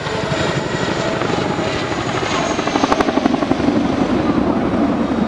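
Boeing CH-47 Chinook twin-rotor helicopter flying past: a rapid, even thudding of the tandem rotor blades over the steady whine of its twin turboshaft engines, loud throughout.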